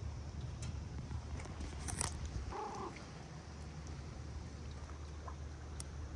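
A domestic cat purring steadily while being stroked, with a brief mew about two and a half seconds in, just after a click.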